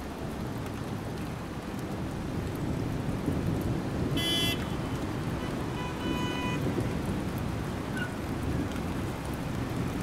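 Steady low rumbling noise, with a brief high-pitched squeal about four seconds in and a short tone near six seconds.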